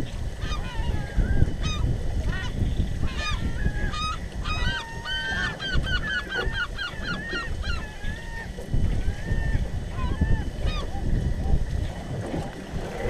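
A flock of geese honking, many overlapping calls with a fast run of calls about halfway through, over a steady low rumble.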